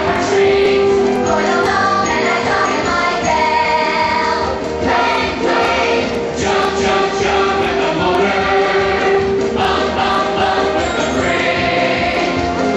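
A group of voices singing together over a musical accompaniment, without a break.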